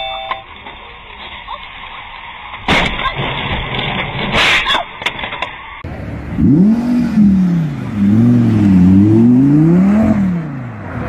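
Dashcam audio with a few short beeps, then two sharp bangs about three and four and a half seconds in. Then an Audi R8's engine revving hard as the car pulls away, its pitch climbing and dropping several times and loudest near the end.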